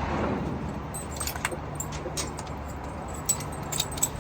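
Small metal clips and buckles jingling and clicking a few times, in scattered clusters, over a steady low hum.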